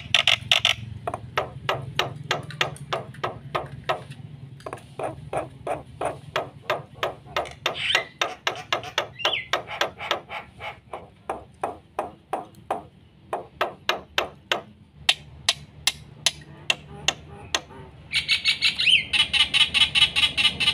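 Black-winged starling (jalak putih) singing a long, varied song of rapid sharp clicks and chattering notes, several a second, broken by short whistled phrases. Near the end it turns into a fast, dense run of high notes. A steady low hum runs underneath.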